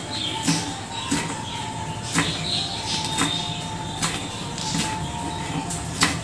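Kitchen knife chopping a green chilli on a wooden cutting board: sharp knocks of the blade on the board, roughly one a second, the loudest one near the end.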